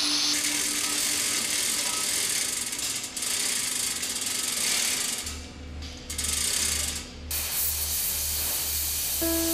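Harsh, steady metalworking noise of power tools working bronze, grinding and hissing, broken by a few short gaps. About five seconds in, a slow, even, low beat of music comes in underneath.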